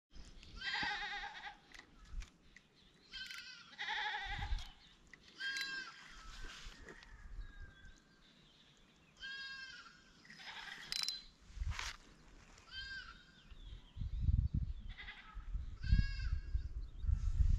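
An animal bleating over and over: about a dozen short, wavering calls. Low rumbling thuds come in near the end.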